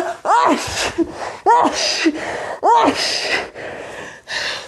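A person sneezing three times in quick succession, each a voiced rising 'ah' breaking into a noisy burst, with a breath near the end: an allergic sneezing fit.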